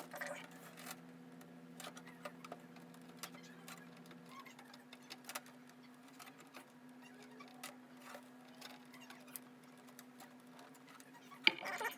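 Scattered faint clicks and taps of hands handling computer parts and cables while hooking up a PC power supply, over a steady low hum; part of the hum stops about four seconds in.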